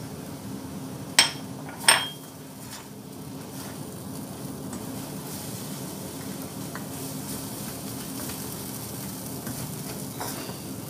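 Tomato and egg stir-fry sizzling in a wok while a spatula stirs it. Two sharp knocks of the spatula against the wok come a little after a second in.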